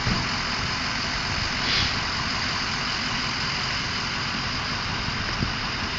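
A car engine idles steadily close by, with a brief hiss about two seconds in.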